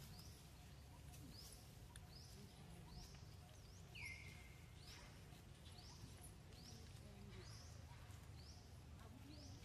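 Faint outdoor background: a short high chirp repeating at an even pace, about every three-quarters of a second, over a low rumble. About four seconds in, one louder call slides down in pitch and briefly holds.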